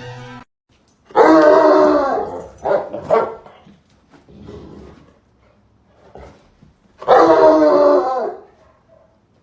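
A dog vocalizing: two long, drawn-out growling barks about six seconds apart, with shorter, quieter grumbles between them.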